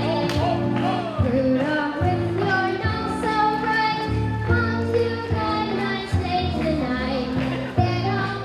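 A girl singing a Christmas song into a stage microphone over a recorded backing track with a steady bass line, amplified through PA speakers.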